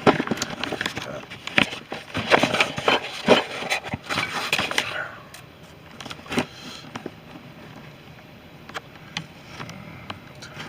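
Handling noise of recording gear being set up and moved close to the microphone. For about five seconds there is a busy flurry of knocks, clicks and rubbing, then only a few scattered clicks over faint room tone.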